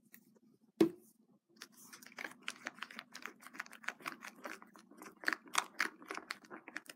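Craft stick stirring red paint into a glue and shaving-foam slime mixture in a bowl: a rapid, irregular run of light clicks and taps, after a single knock about a second in.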